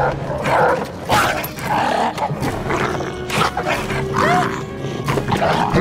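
Film sound effect of a mutant dog snarling in a series of short bursts, over dramatic film score.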